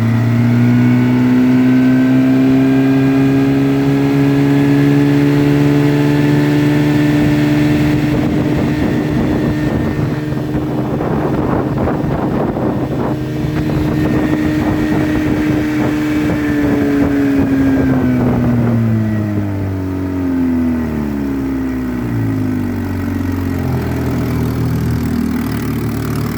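1954 Johnson QD-15 10 hp two-stroke twin outboard motor running under way. Its note climbs as the throttle opens, holds steady at speed, then drops about eighteen seconds in as it is throttled back.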